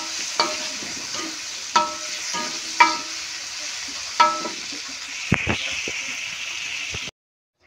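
Chilies, tomatoes and shallots sizzling in hot oil in a wok while a metal spatula stirs them, clinking sharply against the wok about five times. The sound cuts off suddenly near the end.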